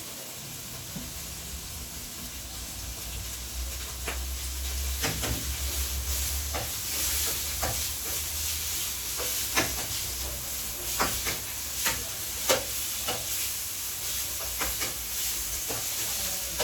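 Beef sizzling as it fries in oil in a pan, with a spatula knocking and scraping against the pan at irregular intervals from about four seconds in.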